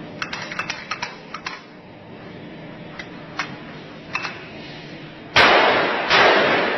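Metal clicks and knocks as a magazine is seated and the pistol is handled, then, about five seconds in, a Retay G17 9 mm blank-firing pistol fired in rapid succession. The shots run together into a loud, continuous blast.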